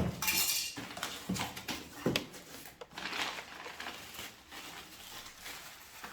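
Boxes and packaged products being handled and opened: a rustling burst at the start, then irregular clicks, knocks and clinks of hard items being moved about.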